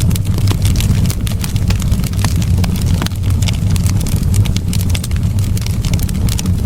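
Wood fire in a fireplace crackling: frequent sharp pops and snaps over a steady low rumble of the flames.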